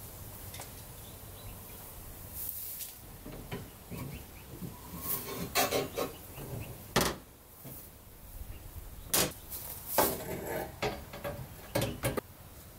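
Welded metal window frame clanking and knocking against the cabin's wooden gable as it is handled and set into the opening: a string of irregular sharp knocks, some with a short metallic ring, most of them in the second half.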